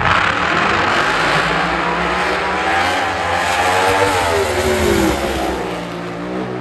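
Drag racing cars' engines running flat out down the strip, loud and harsh, with the pitch sliding down about four to five seconds in.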